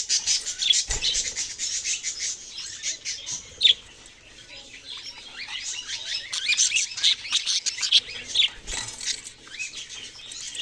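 Several pet budgerigars chirping and warbling together in a fast, continuous chatter of short high chirps, easing off briefly midway before picking up again.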